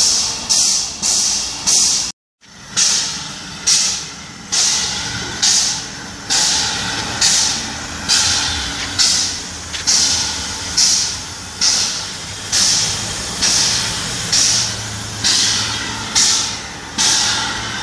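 Gr-class narrow-gauge steam locomotive standing with steam up, letting out regular hissing puffs of steam, each sharp at the start and then fading. The sound drops out briefly about two seconds in; the puffs come about twice a second before that and a little more than once a second after.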